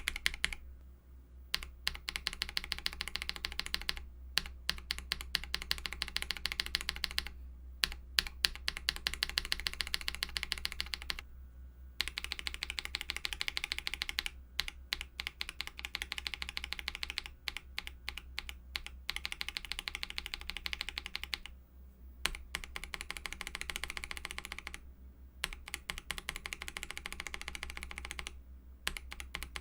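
Fast typing on a mechanical keyboard fitted with lubed Akko CS switches: quick runs of keystroke clacks broken by short pauses every few seconds.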